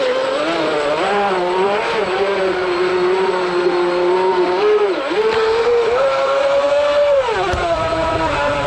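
Amewi NTN 600 RC speedboat's electric motor whining under throttle, its pitch shifting with the throttle: steady for several seconds, dipping briefly about five seconds in, rising higher for a second or so, then dropping near the end.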